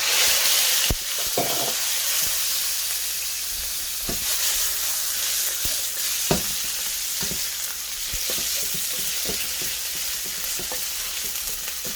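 Seasoned chicken pieces going into hot oil in a pot: a loud sizzle starts all at once, then settles into a steady frying hiss. Scattered knocks and scrapes from the utensil stirring the pieces sound throughout.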